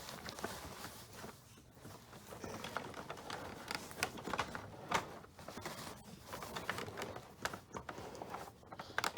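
Full paper dust bag being wrestled back into a Hoover Elite upright vacuum: irregular rustling and crinkling of paper with scattered small clicks and knocks of handling.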